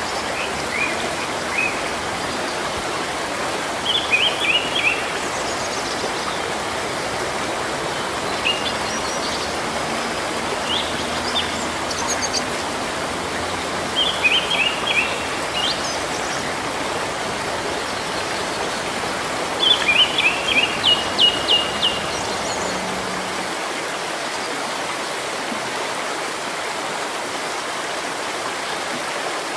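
Steady rain falling on foliage, an even hiss throughout. A bird calls over it several times in short runs of quick, high chirps, loudest about twenty seconds in.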